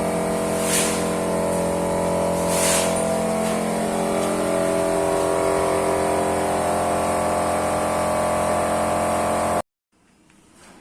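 Vacuum pump of a Hualian vacuum sealing machine running with a steady motor hum, with two short hisses of air in the first three seconds. The sound cuts off abruptly near the end.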